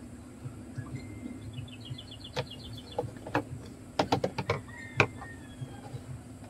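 Sharp knocks and clicks from a car instrument cluster and soldering iron being handled on a wooden table: a quick run of them about four seconds in, the loudest about five seconds in. A bird chirps in a fast trill around two seconds in, over a steady low hum.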